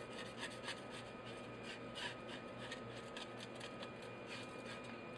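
Faint, irregular rubbing and scraping strokes, a few a second, from hands handling a wet whole fish over a stainless-steel sink.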